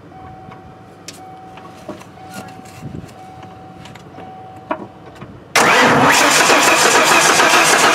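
Ford 4.9-litre inline-six being cranked by its starter, starting suddenly about five and a half seconds in after a faint steady tone and a few light clicks. The engine turns over without firing because its distributor isn't turning: the fiber camshaft timing gear has broken.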